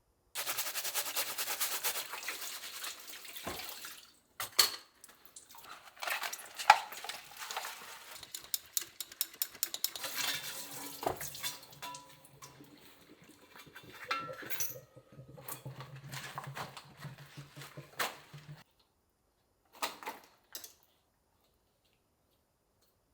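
Kitchen tap running into the sink for a few seconds, then dishes and utensils clinking and knocking, with a low steady hum for a few seconds past the middle and two short clatters near the end.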